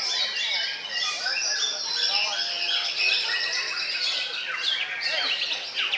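White-rumped shamas (murai batu) singing: an unbroken, dense run of varied whistles, slurred glides and fast trills, with more than one bird's song overlapping.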